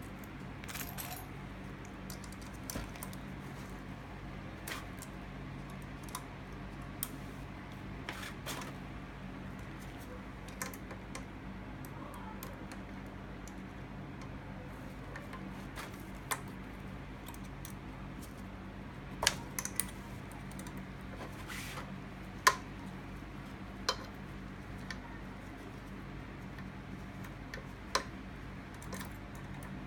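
Scattered sharp clicks and taps of small metal parts and hand tools being handled on a Suzuki Bandit 1200S carburetor bank during disassembly, with a few louder knocks past the middle, over a steady low hum.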